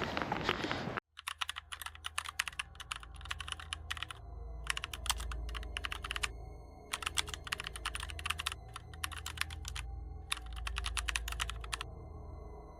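Noisy handling for about a second. Then an abrupt cut to bursts of rapid clicking, like keyboard typing, over a low steady hum that swells and fades.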